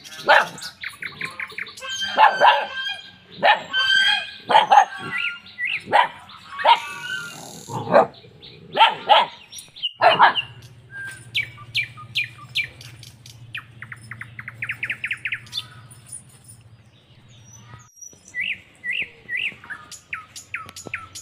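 Puppies barking and yapping in quick, repeated yelps for about the first half. After that, birds chirp, with a fast trill partway through and a few more chirps near the end.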